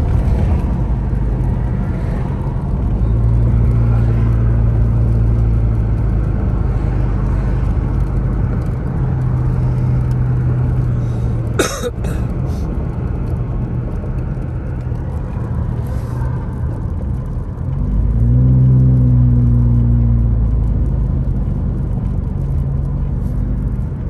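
Car engine and tyre noise heard from inside the cabin while driving, a steady low hum. About halfway through there is one sharp click. About three-quarters of the way through, the engine note rises as the car speeds up, then holds.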